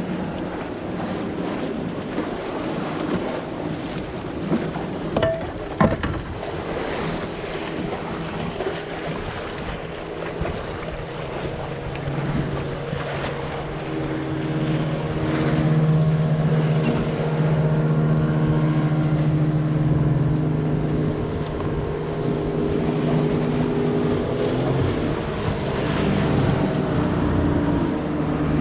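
Outboard motors of several bass boats running past, their engine drone growing louder from about twelve seconds in, over steady wind and water noise. A couple of sharp knocks about five seconds in.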